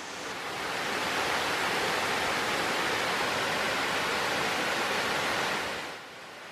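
A waterfall pouring over rock ledges into a pool, a steady rush of falling water. The rush drops to a quieter water sound near the end.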